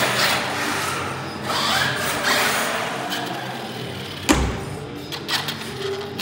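Electric RC truck driving on a concrete floor in a busy, echoing hall, its noise surging up and down. A single sharp thump about four seconds in.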